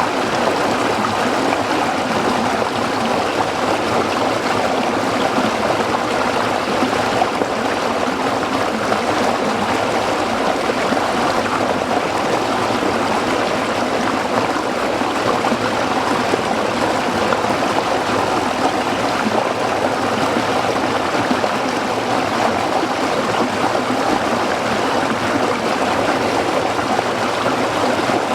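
Small stream flowing and splashing over rocks, a steady rushing and gurgling without let-up.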